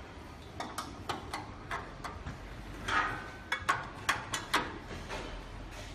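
A dozen or so irregular metal clicks and clinks from handling screws and laser-tube holder parts as a laser tube is fitted and its holder tightened on a laser cutter. The loudest clinks come about halfway through.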